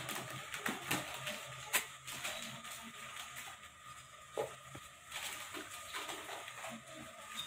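A cat shifting about in a wire cage, her paws on the metal bars giving a few scattered knocks and rattles.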